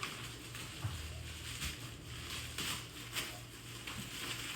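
Plastic shrink wrap rustling and crinkling in short bursts as hands pick at it to find the loose end, over a steady low hum.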